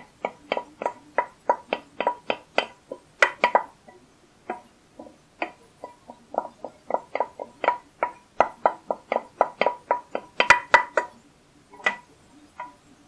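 A spoon knocking and scraping against a frying pan as sautéed vegetables are scraped out of it into a soup pot: a long, irregular run of sharp, ringing clinks, about two to four a second, thinning out for a moment around five seconds in.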